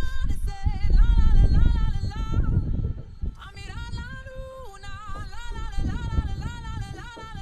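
A song with a singing voice, its held notes wavering in pitch, over a heavy low rumble that is loudest in the first half.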